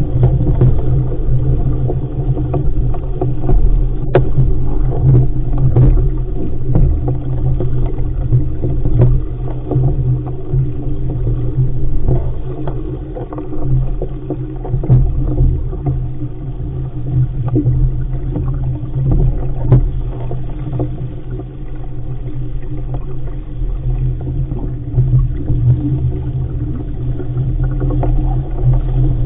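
Wind buffeting a boat-mounted camera's microphone over water rushing and slapping along a sailing dinghy's hull as it drives through chop, heard as a dense, muffled low rumble with scattered knocks.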